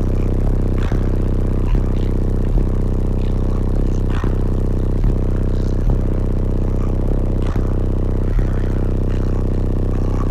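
Loud bass-heavy music with a steady beat about every 0.8 seconds.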